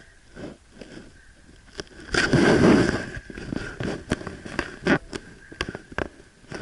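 Footsteps crunching in deep snow, short crisp crunches about three a second, with a louder rushing noise for about a second, two seconds in.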